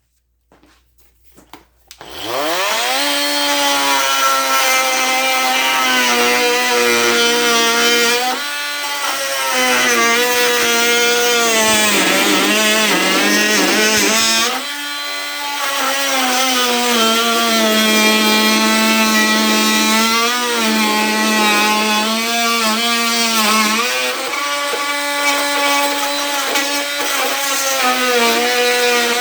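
Ryobi P343 18V brushed oscillating multi-tool starting about two seconds in, its whine rising to speed, then running on speed 6 as its blade cuts through a 2x4. The pitch sags and wavers a few times during the cut.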